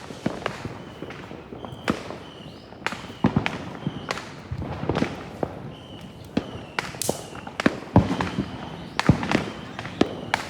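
Consumer fireworks and firecrackers going off all around, an irregular string of sharp bangs and crackles of varying loudness, some near and some far. Short high chirps sound between the bangs.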